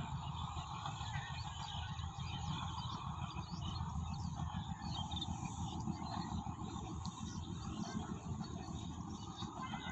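Rural field ambience: wind buffeting the microphone with a steady low rumble, and many small birds chirping.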